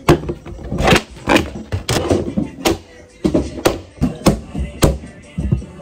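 Clear plastic stackable storage box being pulled apart by hand: a quick run of sharp plastic clacks and snaps, about two a second, as the panels unclip and knock together.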